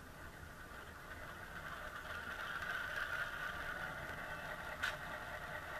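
HO scale CF7 model's Tsunami sound decoder playing a diesel prime mover starting up and idling through the model's small onboard speaker. It grows louder over the first three seconds, and there is a single sharp click near the end.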